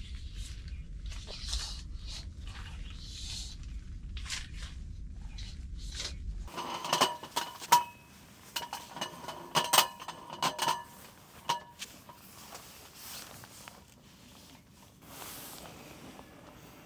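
Soft rustling over a low rumble, then a run of sharp knocks and clinks from about seven seconds in, two of them loudest, as a folding wooden slat table with metal hinges is handled and set down on a tent floor, followed by quieter rustling of tent fabric.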